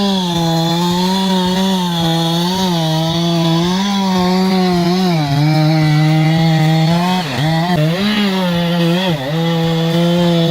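Two-stroke chainsaw running at high revs while cutting. Its pitch holds high and dips briefly several times as the chain loads in the wood, most often in the second half.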